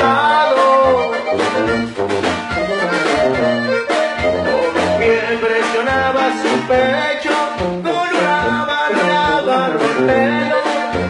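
Live band music with a drum kit and a guitar-type string instrument, playing a passage with a melody line and a steady beat.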